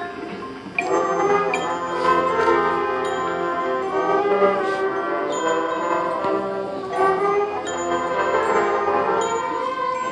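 High school marching band playing: a quieter passage with bell-like mallet tones, then the full brass section comes in loudly just under a second in and plays on with held chords.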